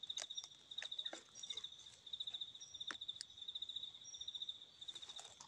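A forest insect trilling in rapid pulses on one high note, with a few faint clicks and rustles of dry leaf litter being handled.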